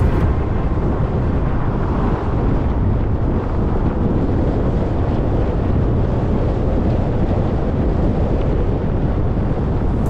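Steady road noise of a car driving along a highway: a low rumble of tyres and wind with no changes in pace.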